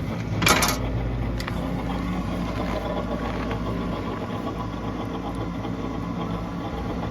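Outdoor wood furnace running with a steady mechanical hum. A short metallic clatter about half a second in, as the firebox door is opened.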